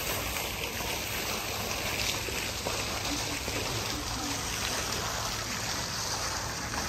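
Steady outdoor ambience: an even rushing noise with no distinct events.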